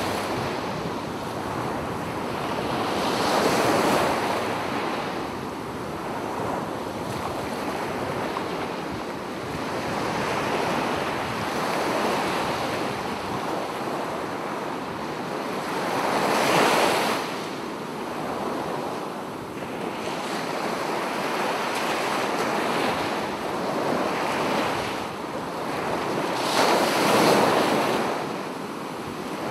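Sea waves washing onto a sandy beach, with wind. The surf rises and falls every few seconds, with three bigger surges.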